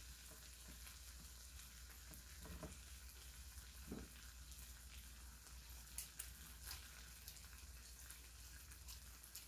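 Spicy marinated webfoot octopus sizzling faintly in a frying pan over a lit gas camping stove, with a few light clicks of chopsticks about six to seven seconds in.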